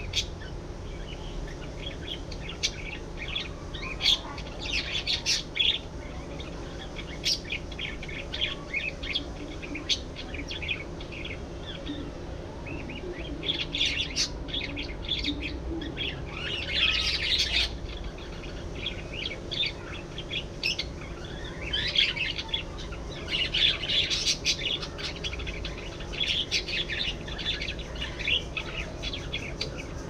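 A flock of budgerigars chirping and chattering: rapid runs of short high chirps that come in busier, louder patches several times over.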